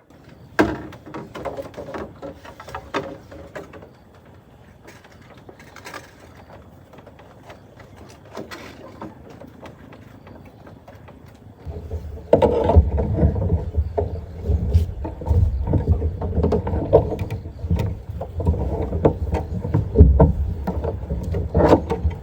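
A few knocks and clatters, then about twelve seconds in a motor starts and runs steadily with a loud, low rumble.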